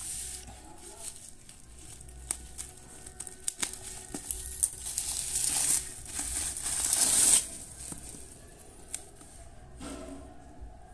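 Plastic bubble wrap crinkling and rustling as it is pulled off a cigarette carton, with scattered sharp crackles. The longest and loudest rustle runs from about five to seven seconds in, then it goes quieter.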